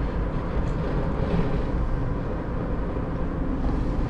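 Steady low rumble of a car's engine and tyres while driving, heard from inside the cabin.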